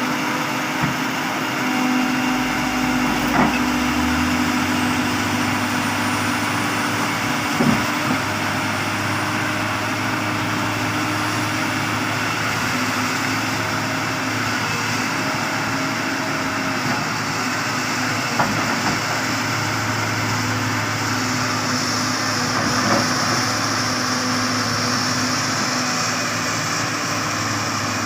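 Heavy earthmoving machinery running steadily, a diesel engine hum with a higher whine over it, broken by a few sharp knocks and clunks.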